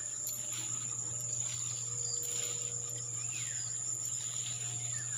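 Steady, high-pitched chorus of insects trilling in tall grass, with a soft rustle of grass stalks as someone pushes through them on foot.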